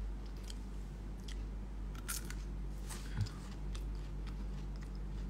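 A man biting and chewing something crunchy: a scatter of short crisp crunches over a low steady hum.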